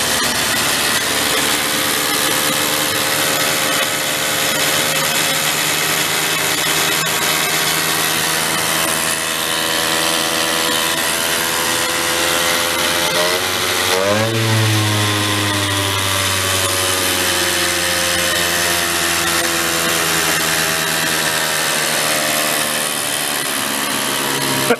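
Benelli Buzzer 65cc mini bike engine running fast and steady on its own, revving high without throttle, which the owner takes for an intake leak. About 14 seconds in the revs dip briefly and climb back, and a deeper hum joins for several seconds before fading.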